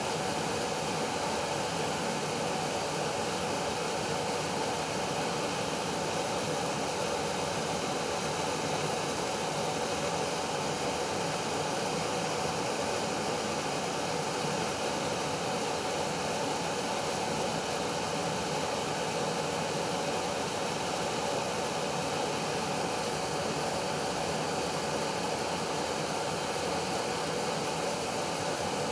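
A steady, even rushing noise that does not change, like machine or room background noise.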